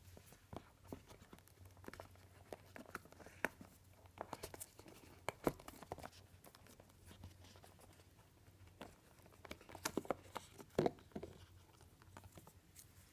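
Handling noise of a watch on its pillow cushion being pushed into and lifted out of a wooden watch box: scattered soft knocks, clicks and rustles. The loudest knocks come about five and a half seconds in and again around ten to eleven seconds.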